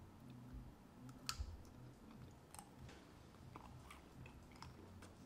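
Faint chewing of sugar-coated Shine Muscat grapes from a tanghulu skewer, with a few scattered crisp clicks.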